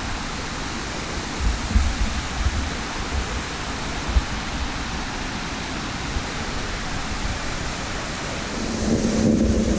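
Steady rushing of running water, with a few low bumps on the microphone.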